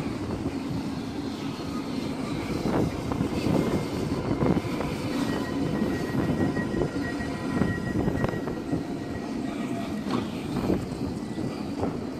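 Alstom light-rail tram running in along street track and slowing to a stop at the platform: a steady rumble with a few light clicks, and a faint high whine from about five to nine seconds in.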